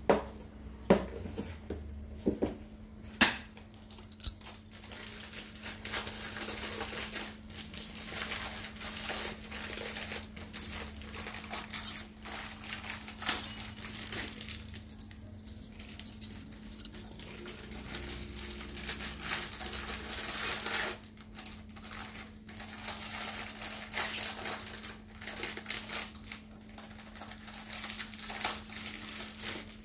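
Glass bangles clicking and clinking against one another as a stack is handled and turned, with a few sharper clacks in the first few seconds.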